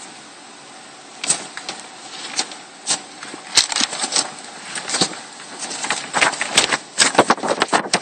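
Handling noise: a run of irregular clicks and knocks, sparse at first and coming thick and fast in the second half.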